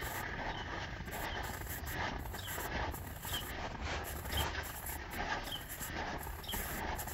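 Footsteps of a walker on a snow- and ice-covered path, in an even rhythm of roughly one step a second, over a low steady rumble.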